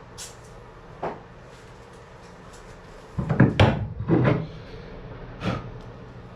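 Wooden pieces being handled: a couple of light taps, then a loud cluster of wood knocking and rubbing about halfway through, and one more knock near the end.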